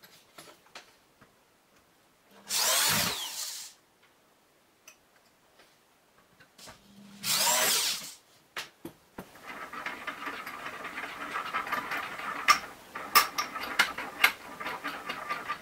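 A cordless drill mounted on a screw clamp runs in two short bursts of about a second each, its pitch sweeping as the motor speeds up and slows. From just past halfway comes a steady rasping with sharp clicks, the clamp's steel screw being turned by hand.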